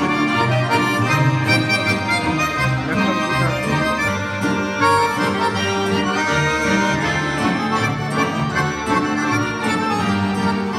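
Accordions playing an instrumental melody together, with electronic keyboard backing.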